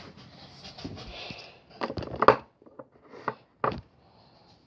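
Handling noises: a soft rustle, then four or five short clicks and taps at irregular spacing.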